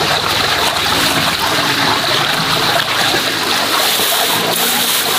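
Steady rushing of flowing water, like a stream.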